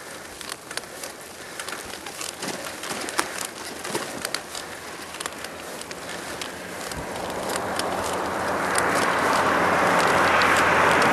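Rushing road and wind noise from a moving vehicle, with scattered crackling clicks. The rush swells steadily over the last five seconds until it is loud, then cuts off abruptly.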